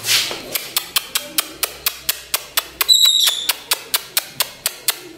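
A quick, even run of sharp clicks, about five a second, while grain is scattered on a concrete floor for pigeons and a chicken, with a short high chirp about three seconds in.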